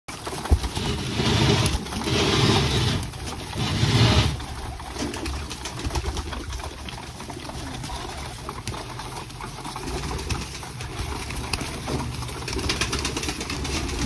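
A crowded flock of domestic pigeons cooing and flapping their wings. Several loud bursts of wingbeats come in the first four seconds, then a steady rustle of wings and scuffling with cooing under it, and a few more wing bursts near the end.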